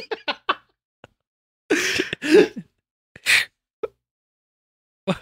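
Short vocal reactions from men: a few quick breathy bursts at the start, a louder pitched outburst about two seconds in and a shorter one just after three seconds, each cut off to dead silence.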